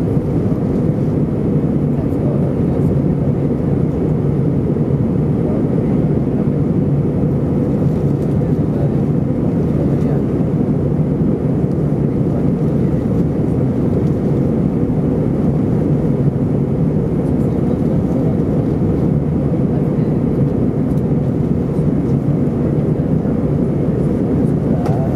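Steady cabin noise of an Airbus A320 in flight: a low, even drone of engines and airflow heard from a window seat, with no change in level.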